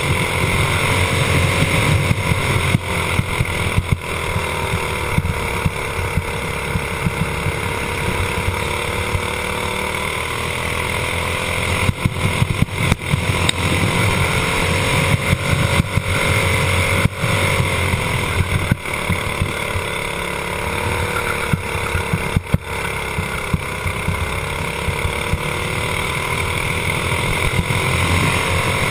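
Racing kart engine running hard at speed, heard onboard with steady rushing noise over it. Its pitch sags briefly twice, about a third and three quarters of the way through, and climbs again as the kart accelerates, with short rattles and knocks throughout.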